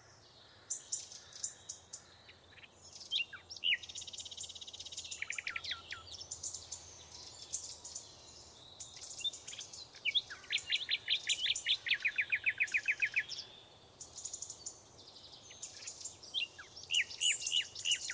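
Several songbirds singing and calling over one another, with high chirps and fast trills of repeated falling notes at about ten notes a second, the longest trills running for a second or two in the middle.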